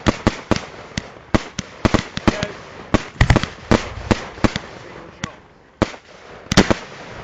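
Aerial fireworks display heard from the firing position: a rapid, irregular run of sharp bangs from shells being fired and bursting, with a short lull about five seconds in.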